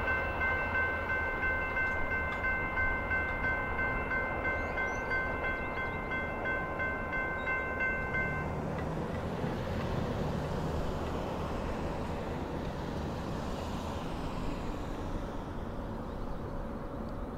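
Electronic railway crossing bell ringing in an even rhythm, about two strokes a second, over a low rumble. The bell stops about eight and a half seconds in, once the train has cleared the crossing, and a steady low background noise remains.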